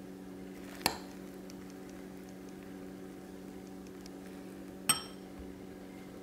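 A metal spoon clinks twice against a ceramic mug while scooping into soft cake, about a second in and again four seconds later, each a sharp click with a short ring. A steady low hum runs underneath.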